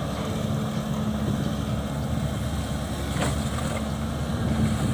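Caterpillar 323D hydraulic excavator's diesel engine running steadily with a low hum while the machine works, swinging its boom and dumping sand from the bucket.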